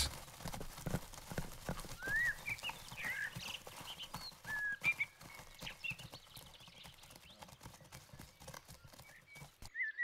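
Hooves of a herd of Iberian ibex clattering over rocks and stones as they move across a slope, a scatter of quick clicks and knocks. Short high calls come a few times between about two and five seconds in.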